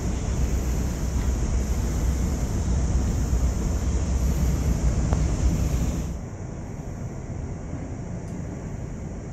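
Steady ambient rumble and hiss with a heavy low rumble, dropping suddenly to a quieter hiss about six seconds in.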